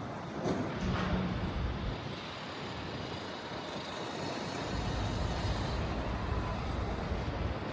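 A car driving, with steady road and engine noise throughout and a brief louder patch about a second in.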